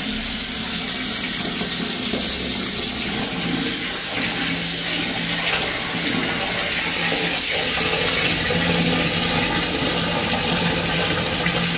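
Steady stream of water from a wall tap pouring into a steel pot of raw mutton pieces, splashing over the meat.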